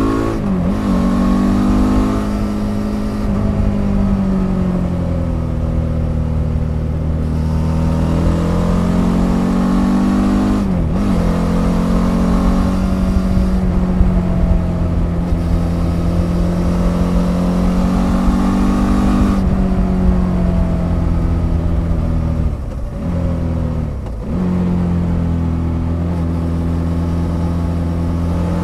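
Suzuki DL650 V-Strom's 645 cc V-twin engine running under way on its stock exhaust, heard from beneath the seat. The engine note rises and falls with the throttle and dips sharply and recovers four times as the rider rolls off and shifts.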